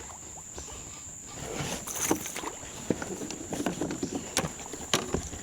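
Water splashing around a boat with irregular sharp knocks and clicks as a hooked spotted bass is fought and landed, over a steady high-pitched tone.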